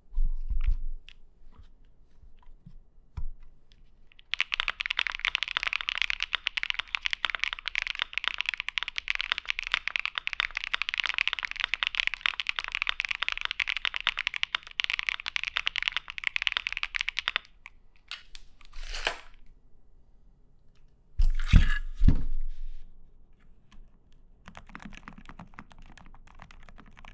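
Typing on mechanical keyboards. A dense, fast run of loud keystroke clicks lasts about thirteen seconds. After a couple of low thumps, the typing comes back much quieter near the end, on a quieter keyboard.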